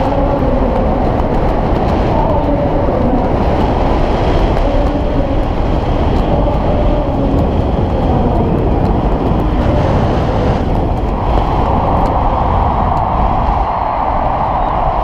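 Steady wind rush buffeting a skydiver's helmet-camera microphone during a descent under an open parachute, a loud, even rumble.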